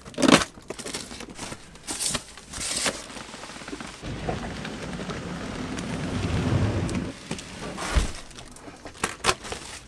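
A cardboard box being cut open and unpacked: sharp crackles and rips of packing tape and cardboard, then a stretch of plastic wrapping rustling and crinkling, and a low thump about eight seconds in as the packing is handled.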